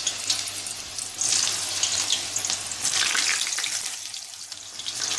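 Eggplant slices frying in hot oil in an aluminium pan: a steady, loud sizzle that swells about a second in and again about three seconds in as more slices go into the oil.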